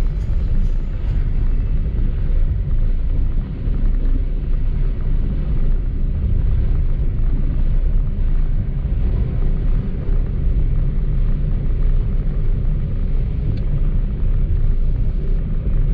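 Steady low rumble of a car driving along a road, with no distinct events.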